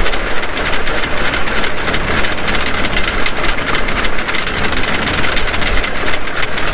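Model T railcar under way on the rails: its four-cylinder engine running steadily beneath a dense, even rattle of the wheels and running gear on the track, with a loud hiss over the top.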